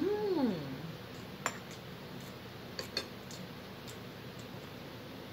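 A woman eating gives a short 'mmm' that rises and then falls in pitch, with the spoon in her mouth. A few light clicks of the spoon against the dish follow, about a second and a half in and again around three seconds in.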